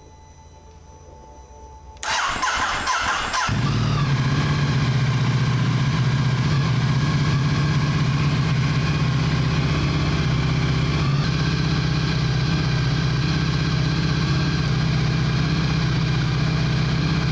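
Ducati Multistrada 1260 Pikes Peak's liquid-cooled 1262 cc Testastretta DVT V-twin with Termignoni exhaust is cranked by the starter about two seconds in. It catches after about a second and a half and settles into a steady idle.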